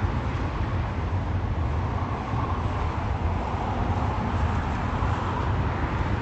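Steady distant jet-engine noise from airliners taxiing at the airport, a continuous rumble with a broad roar that swells slightly twice.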